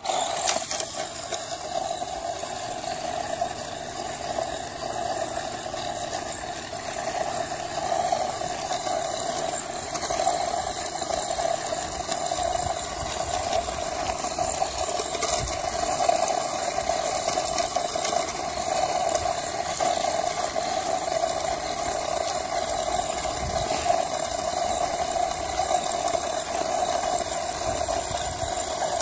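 Electric Traxxas Rustler RC stadium truck running on gravel: a steady motor and drivetrain noise that starts abruptly and keeps going without a break.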